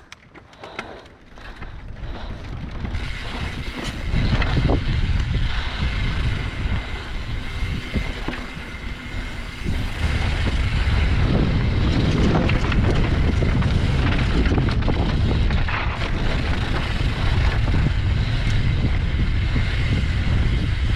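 Wind buffeting the microphone and tyres rolling over a dirt trail, with the rattle of a YT Tues downhill mountain bike on a fast descent. It is fairly quiet at first, builds, and is loud from about four seconds in.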